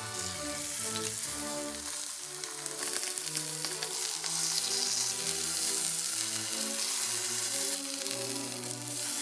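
A block of sous-vide-cooked beef sizzling in a non-stick frying pan over high heat as its surface is browned. The sizzle swells about three seconds in. Background music plays with it.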